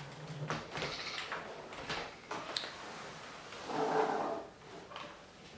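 An HP TouchSmart 600 all-in-one PC's plastic casing and stand being handled and moved: scrapes and knocks, a sharp click about two and a half seconds in, and a louder scraping rub around four seconds.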